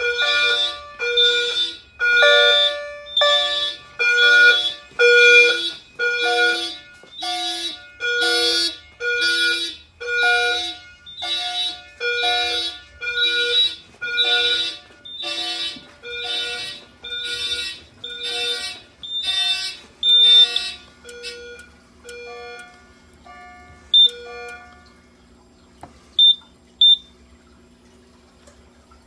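Fire alarm horns of a Simplex 4100U system sounding in a fast pulsing pattern, about two blasts a second, several horns of different pitch going at once. The pulsing dies away about twenty-five seconds in, leaving a few short chirps.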